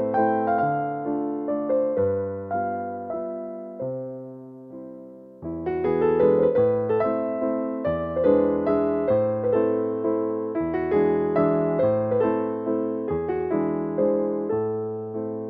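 Background music: a gentle keyboard tune of struck, fading piano-like notes in a steady pulse, thinning out about four seconds in and coming back fuller a little over a second later.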